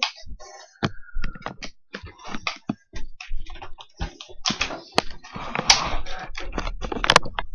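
Irregular plastic clicking and rattling as an orange plastic toy is handled and worked with the hands. There is a brief steady tone about a second in and a denser stretch of rattling a little past the middle.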